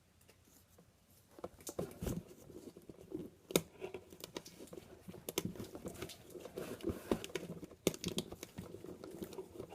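Handling of a homemade cardboard-and-tape vending machine: scattered taps and knocks with crinkling and rustling as a squishy on a stick is worked out of it.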